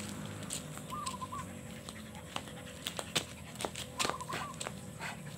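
A village dog panting as it jumps and plays. A run of sharp slaps and clicks comes about halfway through.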